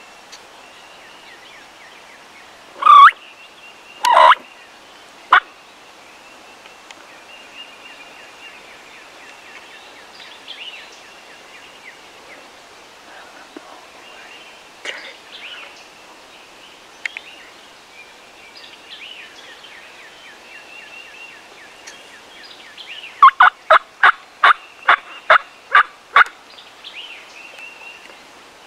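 Eastern wild turkey gobblers in strut gobbling loudly twice about three and four seconds in, with a shorter call just after. Near the end comes a run of about eight sharp, evenly spaced calls. Faint songbird calls twitter behind.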